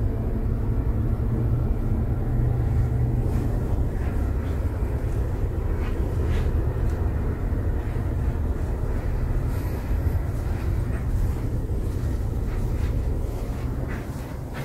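Steady low rumbling noise, with a few faint clicks scattered through it.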